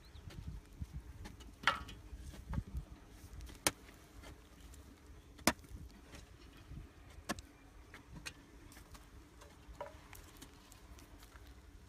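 Hoes digging into hard, dry soil: irregular knocks and sharp clicks as the blades strike earth and clods, with the loudest strikes in the first half and softer ones later.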